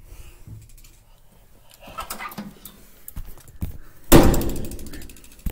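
Scattered knocks and rustles, then a loud thud about four seconds in that dies away over about a second.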